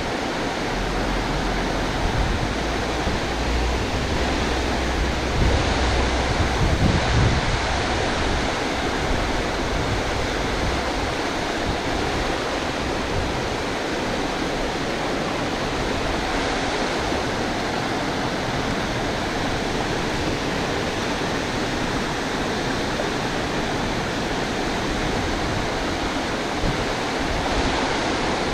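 Water pouring over a low concrete weir: a steady, even rushing. A low rumble of wind buffeting the microphone runs through the first several seconds.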